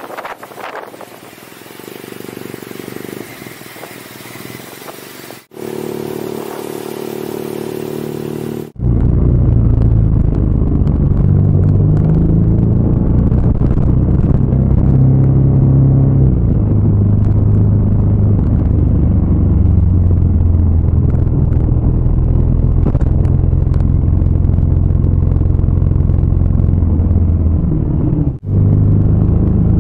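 Motorcycle engine running under way on the road, its note stepping up and down in pitch. Wind noise on the microphone over the opening seconds, before the engine sound comes up loud about a third of the way in.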